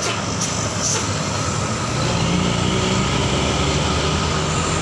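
Large diesel tour bus engine running steadily under load as the bus climbs, with tyre and road noise.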